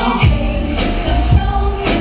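Music with singing over a steady beat, played loud for a stage dance performance.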